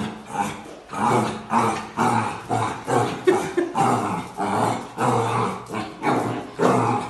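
A puppy barking and growling at its own reflection in a mirror, short loud barks coming about twice a second.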